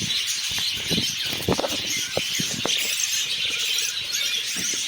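A flock of budgerigars chattering continuously, with scattered short taps and knocks among them.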